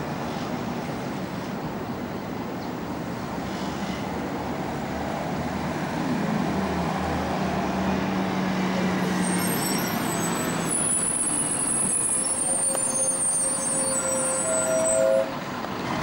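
Street traffic heard from above, with a bus engine running louder as a bus passes from about six seconds in. High-pitched squealing joins in the second half.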